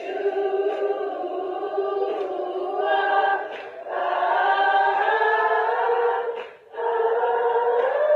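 Many voices singing together without instruments, choir-like, in long held notes, breaking off briefly about three and a half and six and a half seconds in.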